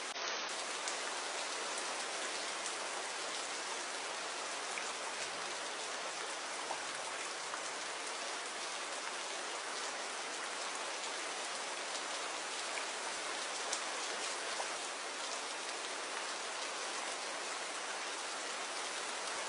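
Steady rain falling, a dense even patter with scattered individual drop ticks.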